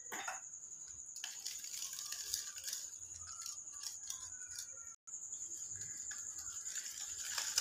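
Faint scraping and light clinking of a coil whisk stirring a runny egg-and-ghee batter in a ceramic bowl, over a steady hiss; the sound drops out for a moment about five seconds in.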